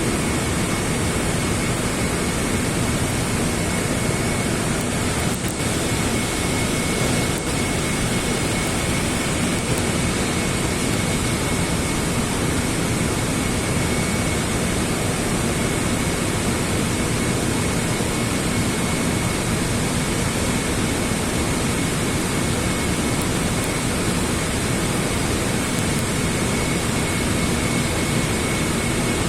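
Stick-welding arc burning with a 3.2 mm E7016 low-hydrogen electrode: a steady, unbroken hiss of arc noise, with a thin steady high tone alongside.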